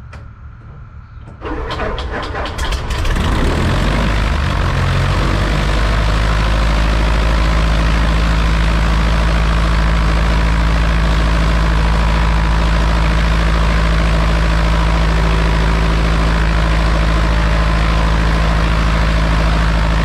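Cessna 140A's four-cylinder Continental engine being started: about a second and a half in, the starter turns it over and it fires unevenly for a second or two, then it catches and settles into a steady idle.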